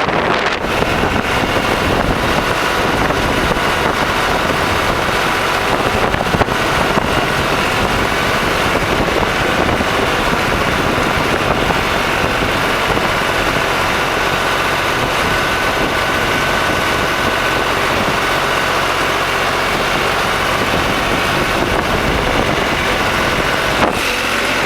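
Tractor engine running steadily under light work.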